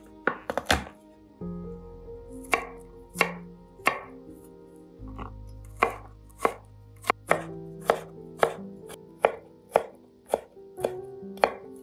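Chef's knife chopping garlic on a wooden cutting board: a quick flurry of knocks about half a second in, then about fifteen sharp, separate knocks at roughly one to two a second.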